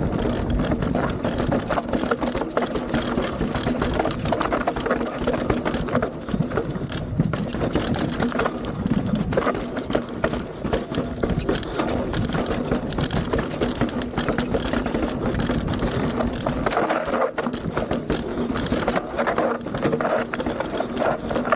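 Mountain bike rolling fast downhill over a rocky, dusty trail: tyres crunching and the bike rattling over stones in a constant stream of clicks and knocks, with a steady buzzing note underneath.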